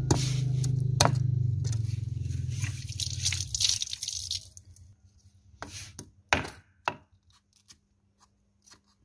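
A large kitchen knife scraping scales off a carp on a chopping board: rapid rasping scrapes over a low steady hum for the first four seconds or so, then a few separate sharp scrapes and taps.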